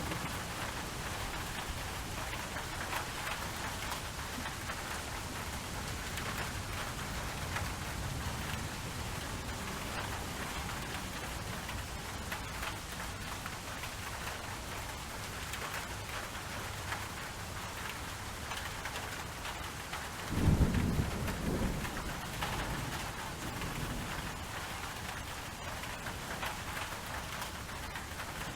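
Steady rainfall, with a rumble of thunder about twenty seconds in.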